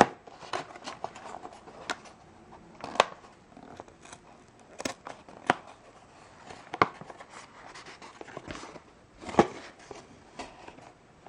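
Small cardboard box being torn and pulled open by hand, its card and packaging crackling with irregular sharp snaps and clicks; the loudest snaps come about three seconds in and again about nine seconds in.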